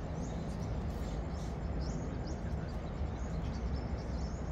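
Small birds chirping in short, frequent calls over a steady low rumble of outdoor background noise.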